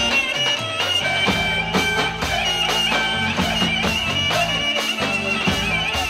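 Roman havası dance music played loud, with a high, wavering wind-instrument melody over a steady drum beat of about two beats a second.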